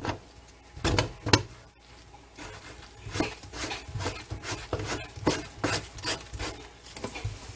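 Irregular clicks, knocks and rubbing of kitchen sink drain parts being handled and fitted back into place, the gasket just put on.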